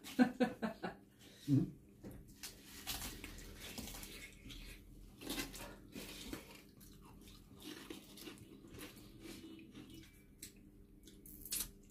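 Close-miked chewing and mouth smacks of a man eating rice and curry with his fingers, with soft wet squishes of his hands mixing the rice on the plate near the start. Short clicks and smacks come every second or two over a low background.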